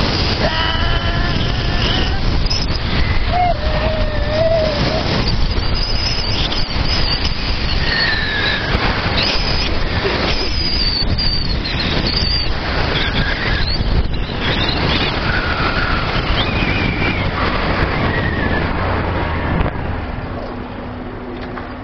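Honda CG 125 Fan motorcycle on the move, its single-cylinder engine running steadily through an exhaust with the baffle removed, under heavy wind rush over the microphone.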